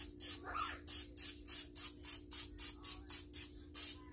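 Aerosol can of cooking spray hissing in short, rapid spurts, about three a second, as it coats the inside of a glass casserole dish.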